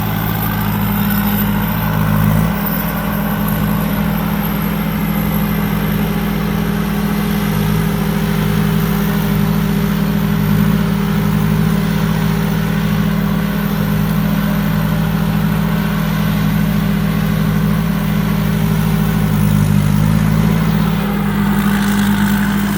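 Four-cylinder turbocharged engine of a Thai Seng Super Jiw combine harvester running steadily through its modified exhaust pipe, its note shifting slightly about two seconds in and again near the end.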